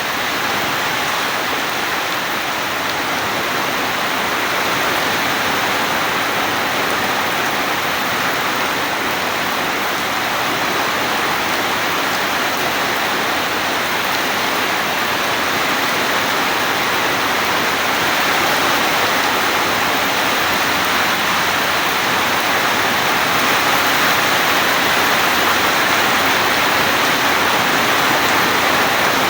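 Heavy rain falling steadily, a dense even hiss that grows slightly louder toward the end.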